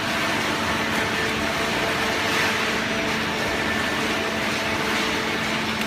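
Cardboard baler conveyor machinery running: a steady mechanical hum with a constant low drone.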